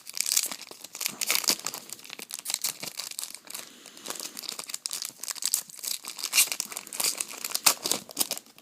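Foil wrapper of a 2012 Bowman Chrome baseball card pack being torn open and crinkled, a dense run of sharp crackles.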